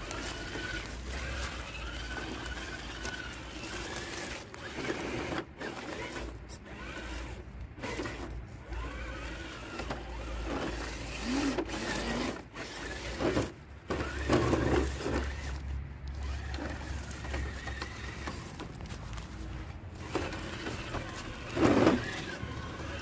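Electric motor and geared drivetrain of an Element Trailrunner RC crawler whining as it drives, the pitch rising and falling with the throttle, with scattered knocks and a louder burst near the end.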